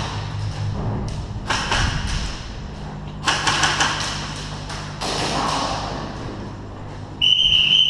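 Airsoft guns firing in short strings of sharp shots, a few seconds apart. A high, steady tone starts suddenly near the end.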